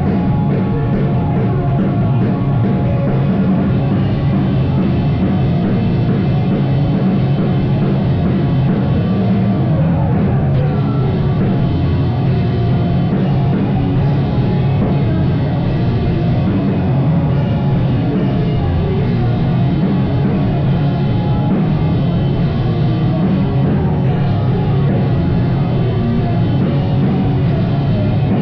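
Live rock band playing loud, dense, heavily distorted music with a full drum kit, steady throughout.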